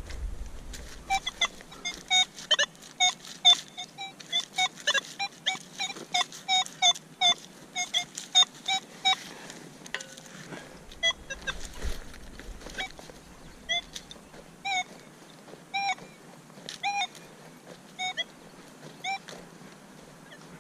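Geese honking: a fast run of honks for the first several seconds, then slower single honks about one a second toward the end.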